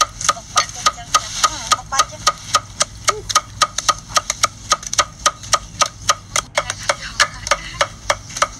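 Steel cleaver chopping dried red chilies on a wooden chopping board: fast, steady knocks of the blade against the wood, about four or five a second.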